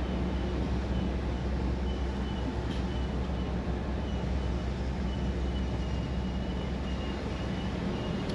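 Steady low engine drone heard from inside a truck cab on a moving car ferry, with a faint high tone that comes and goes.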